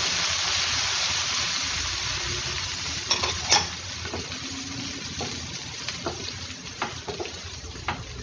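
Onions and chillies sizzling in hot oil in a pan, loudest at first and slowly easing. A spatula stirring them scrapes and clicks against the pan several times, sharpest about three and a half seconds in.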